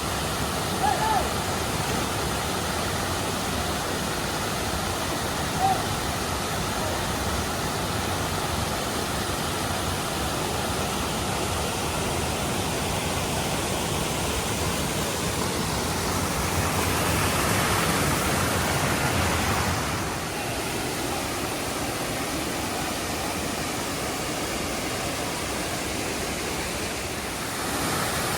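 Rushing water of a waterfall, a steady dense roar that swells for a few seconds past the middle and changes level abruptly twice.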